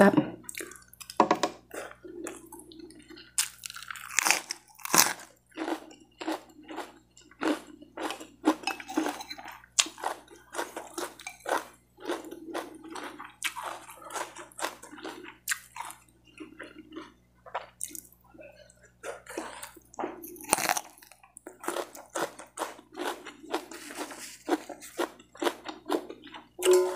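Close-up chewing and crunching of crisp raw lettuce leaves and fried rice: a fast, irregular run of wet, crisp crunches, several a second, between swallows.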